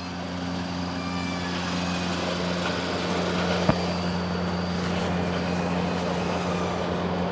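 Steady motor drone with a low hum, slowly growing louder, and a single sharp click partway through.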